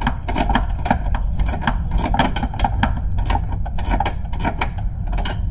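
Ratcheting wrench clicking in rapid, uneven runs as it is swung back and forth by hand to tighten the top nut of a Bilstein B6 shock absorber, over a low rumble.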